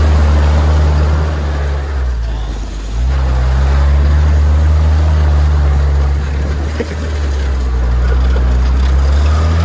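GAZ-69A's four-cylinder side-valve engine, with a newly replaced crankshaft, pulling steadily as the jeep drives through mud and puddles, with mud and water splashing at the wheels. The engine note drops away about two seconds in and picks up again a second later.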